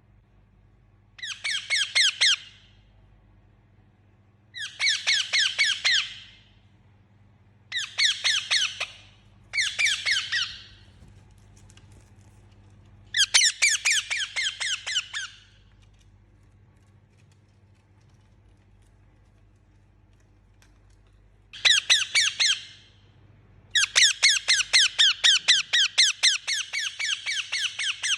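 Indian ringneck parakeet giving bouts of rapid, repeated shrill squawks, seven runs of calls separated by short pauses, the last and longest run near the end.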